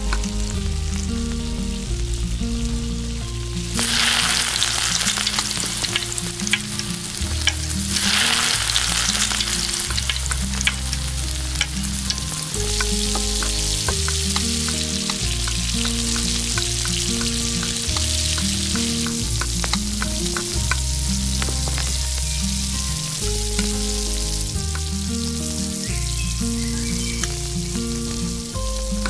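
Marinated chicken pieces dropped into hot oil in a miniature stainless steel pot: a loud sizzle starts about four seconds in and surges again a few seconds later, then the frying goes on steadily with many small clicks of a fork stirring against the metal pot.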